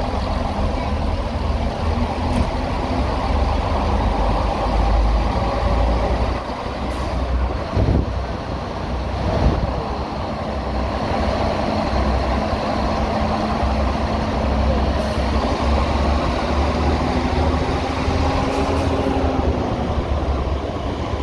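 A heritage diesel train's engine running steadily with a deep rumble.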